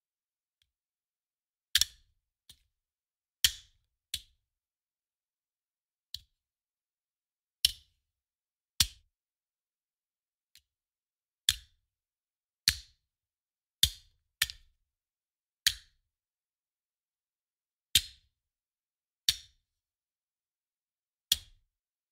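A handgun magazine thrown down again and again: about fifteen sharp metallic clacks, each dying away quickly, spaced unevenly one to two seconds apart, with silence between.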